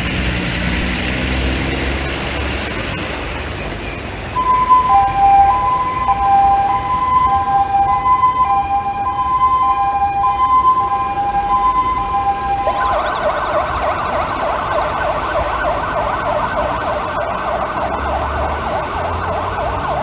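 Fire engine's diesel running as it pulls away. About four seconds in, its two-tone hi-lo siren starts, alternating between two pitches. About thirteen seconds in, the siren switches to a rapid warble.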